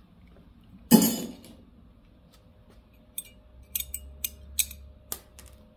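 A sharp metallic clank about a second in, ringing briefly, then a run of light metal clicks and taps near the end: a wrench and bolts working the timing tab off a small-block Chevy 350's timing cover.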